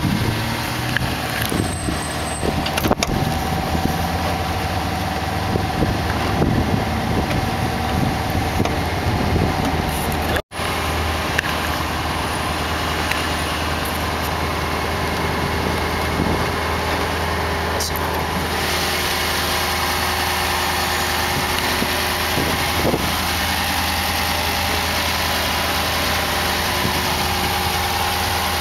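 Lexus IS-F's 5.0-litre V8 idling steadily, the sound cutting out for an instant about ten seconds in.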